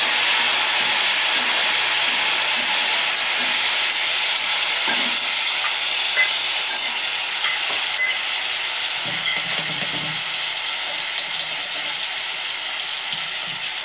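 Onion-tomato masala sizzling as it fries in a kadhai, with a steel spatula scraping and ticking against the pan now and then. The sizzle eases slowly.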